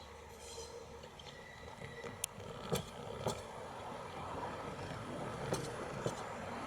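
Train rolling slowly through the yard, its wheels clacking over rail joints in pairs about half a second apart, over a steady rumble that grows a little louder.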